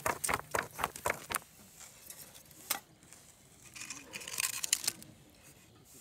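Scattered clicks and knocks of wood being handled at a metal folding fire pit, then a brief scraping rustle about four and a half seconds in as a wooden plank is laid onto it.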